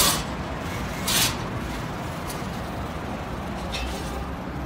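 Steady city street traffic rumble, with short hissing bursts at the start, about a second in, and a fainter one near the end.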